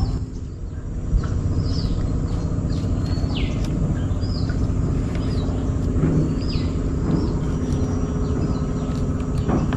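Birds calling with short, high whistled notes that slide downward, repeated every second or so, over a steady low droning hum. A single sharp click about a second in.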